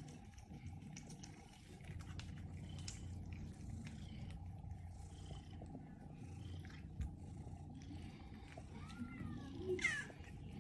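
Several domestic cats purring as a faint steady low rumble, with a couple of short meows about nine to ten seconds in.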